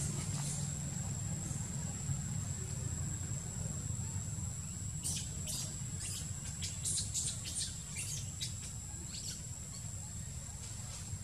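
Outdoor ambience: a steady high-pitched insect-like drone over a low rumble, with a cluster of short, high bird chirps from about five to nine and a half seconds in.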